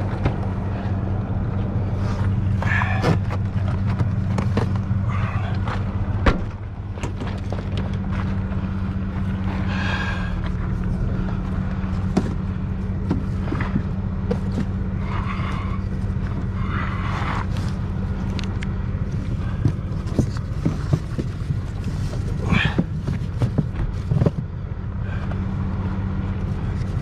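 A vehicle engine idling with a steady low hum, with scattered clicks and knocks over it and a sharp knock about six seconds in.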